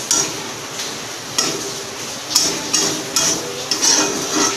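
A metal spatula scrapes and clacks against a kadhai while stirring an onion-and-spice masala frying in oil, with a steady sizzle underneath. The sharp clacks come irregularly, about every half second in the second half.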